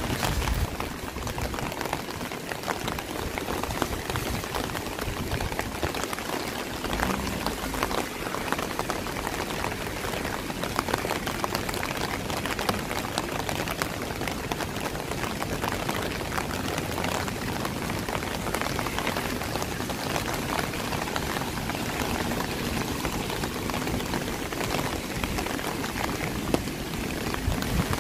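Steady rain falling, with many close drop hits over an even hiss.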